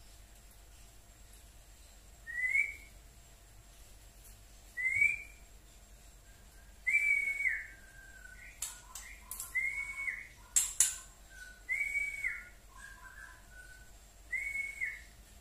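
Juvenile white-rumped shama (murai batu trotol) calling in short, clear whistled notes that rise to a peak, about one every two seconds, around seven in all. In the middle there are a few sharp clicks and softer, lower chattering notes.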